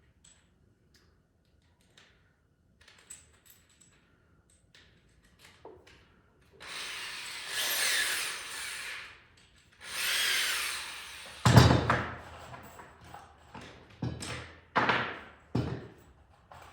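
Power drill driving screws into wood framing in two runs of a couple of seconds each, the motor pitch wavering under load. Then a loud knock and several shorter knocks.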